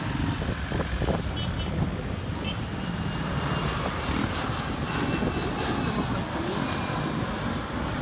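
Airliner's jet engines rumbling steadily as the plane passes and climbs away, with a faint high whine that sinks slowly in pitch.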